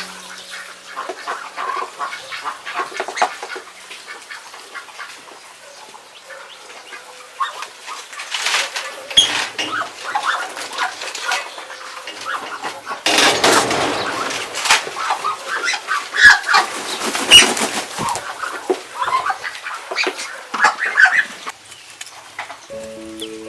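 A flock of ducks and ducklings calling and chattering while they feed, with many short calls throughout. Around the middle comes a louder noisy scuffle with wing flapping.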